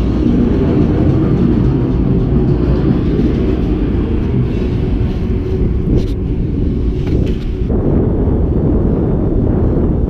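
Wind rumbling on the action camera's microphone while riding a BMX-style bicycle at speed, with a few sharp clicks around six to seven seconds in.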